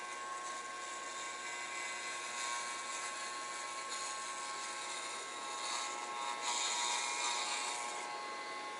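Electric hair clippers, run without a guard comb, buzzing steadily as they cut hair close to the scalp. The hiss of the blades gets louder for a second or two about six and a half seconds in.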